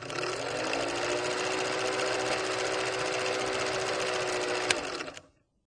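Film projector running, as a sound effect over a countdown leader: a fast, even clatter over a steady motor hum that rises slightly in pitch as it starts. A sharp click comes near the end, and the sound fades out shortly after.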